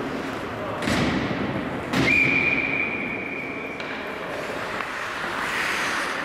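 Indoor ice rink with two sharp knocks, like sticks or pucks striking the ice or boards, about one and two seconds in, followed at once by a referee's whistle: one long steady blast of about two seconds.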